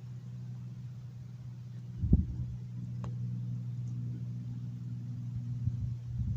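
2012 Scion xD's 1.8-litre four-cylinder engine idling steadily, warming the freshly refilled automatic transmission fluid so its level can be checked. A short thump comes about two seconds in, and a faint click about a second later.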